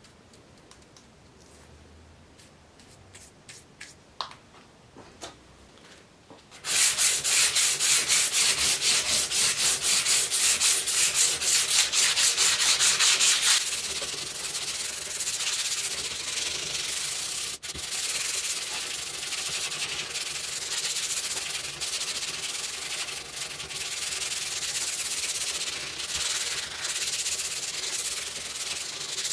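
Sanding on the steel bayonet scabbard. After a few light handling clicks, fast rhythmic back-and-forth strokes start about seven seconds in, roughly five a second. About halfway through they settle into a quieter, steadier rubbing.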